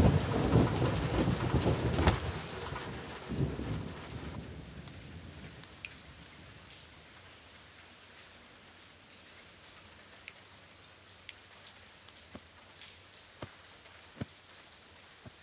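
Heavy thunder rumbling over rain for about the first four seconds, then dying away. Steady light rain continues after it, with scattered sharp ticks.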